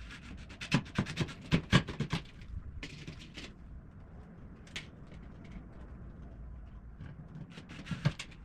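A quick run of sharp clicks and taps from handling a small metal hinge and tiny screws against the wooden bird feeder, then a short scrape and scattered ticks. Another couple of clicks come near the end.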